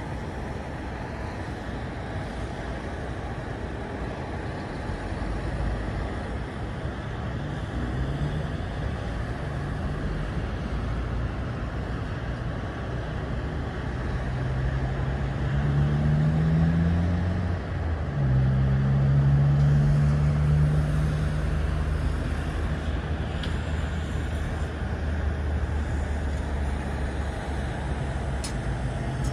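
Steady motorway traffic noise. In the middle an engine's low hum rises in pitch and swells louder for several seconds, then settles back into the traffic.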